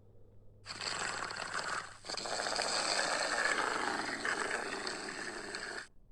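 Hyaenodon creature sound effect standing in for an Andrewsarchus: a rough animal roar without a clear pitch, in two parts, a short one of about a second, then after a brief break a longer one of about four seconds that cuts off suddenly.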